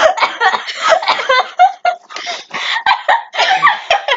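Kids laughing hard, in quick repeated bursts of giggling.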